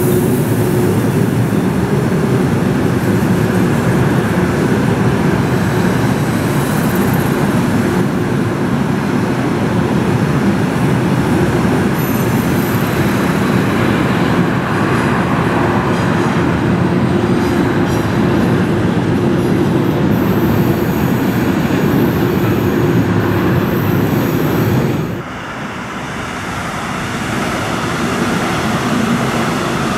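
Passenger train rolling past close below, a loud steady rumble of wheels on rails with a faint high squeal late on. About five seconds before the end the sound drops suddenly, then the noise of a class 1440 electric multiple unit approaching on a viaduct rises.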